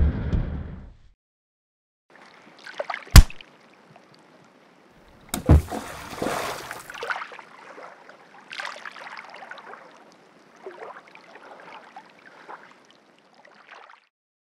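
Cartoon sound effects of a fall into water. A rushing noise cuts off about a second in. After a pause come two sharp hits, the second a splash with spray. Water then sloshes and trickles, fading away.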